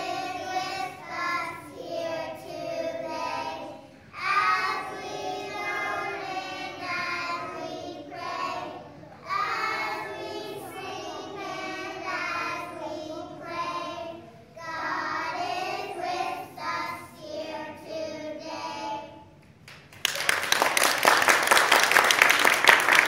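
A group of young children singing a song together in phrases, then, near the end, an audience clapping and applauding, louder than the singing.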